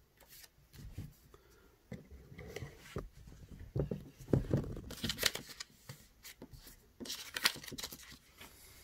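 Sheets of paper being handled on a tabletop: rustling, sliding and light scrapes in several uneven bursts, the loudest about halfway through and again near the end.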